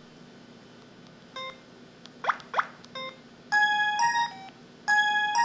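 IM-6400 mobile phone sound effects: a short beep, two quick rising chirps, another beep, then a bright electronic jingle of stacked tones starting about three and a half seconds in and again near the end.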